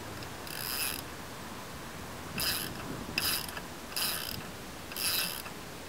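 Socket ratchet wrench turning a lug nut off a car wheel: the pawl clicks in five short bursts as the handle swings back between strokes.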